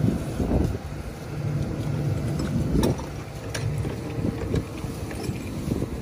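John Deere combine running steadily, with wind buffeting the microphone and a few sharp knocks in the middle.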